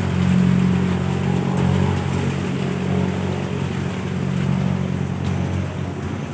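An engine running steadily, a low even drone that is strongest in the first couple of seconds and eases slightly after.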